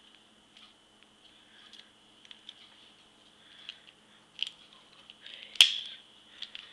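Screwdriver turning a spring-loaded adjustment screw into a plastic puzzle-cube core: faint scraping and scattered small plastic clicks, with one sharp click about five and a half seconds in.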